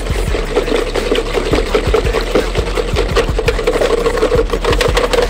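Mixing by hand in a bowl instead of with an electric beater: a fast, steady run of strokes.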